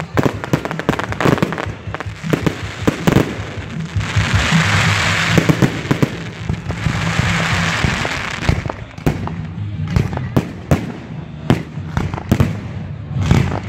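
Fireworks display: a rapid, irregular string of sharp bangs from bursting shells, with a dense crackling hiss swelling about four seconds in and lasting several seconds.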